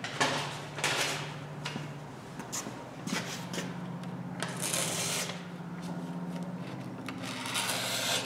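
Irregular scraping strokes of something worked by hand along the steel edge of a forged hatchet held in a bench vise, with pauses between strokes, over a steady low hum.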